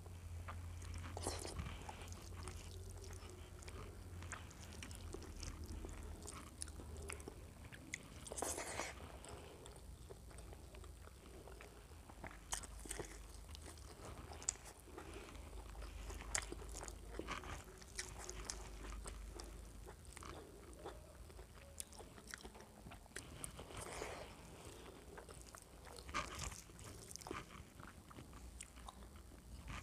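Faint chewing and eating sounds of a person eating rice, fried egg and taro curry by hand, with scattered small clicks over a low steady hum.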